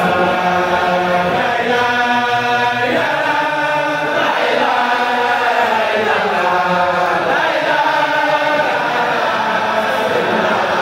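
A large congregation of men chanting in unison, a religious chant of long held notes that shift in pitch every second or two, without a break.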